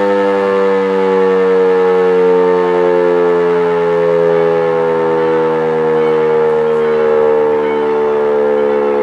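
E57 electric civil-defence siren sounding the fire-alarm signal: a loud, continuous wail of several tones together that slowly sinks in pitch.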